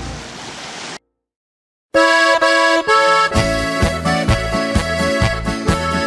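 Background music. A noisy wash fades out in the first second and is followed by about a second of silence. A tune with held chords then starts, and a steady beat joins it about a second later.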